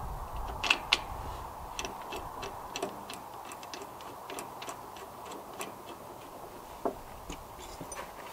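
Scattered light clicks and taps at an uneven pace, a few a second, with two sharper clicks about a second in, over a faint steady hum.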